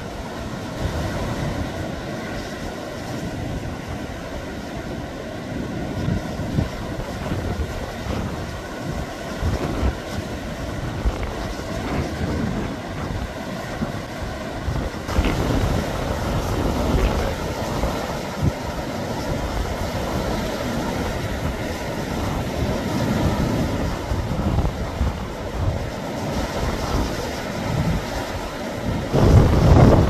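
Rough sea waves surging and breaking against rocks, with strong wind buffeting the microphone; a heavier gust hits the microphone near the end.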